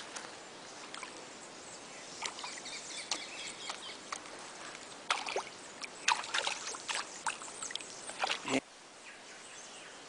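Shallow creek water sloshing and splashing in short, irregular bursts as a caiman holding an electric eel in its jaws shifts in it, over a faint steady outdoor hiss. The splashing comes mostly in the middle and cuts off abruptly near the end.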